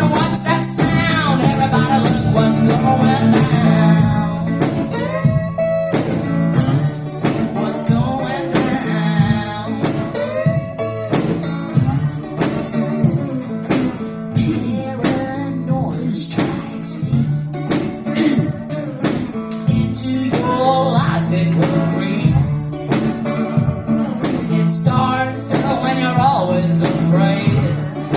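Live one-woman-band music: singing and guitar over a steady stepping bass line, with regular percussion hits keeping the beat.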